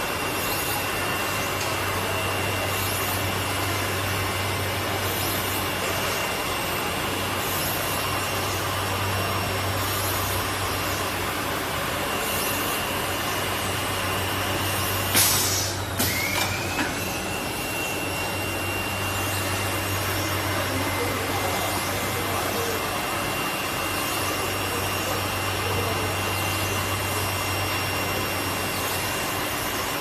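Automatic ceramic-roller cleaning robot running: a steady high motor whine and low hum over the rubbing noise of its rotating cleaning head on the ceramic furnace rollers. About halfway through there is a sharp knock, the whine cuts out, then rises back up to its steady pitch as the motor spins up again.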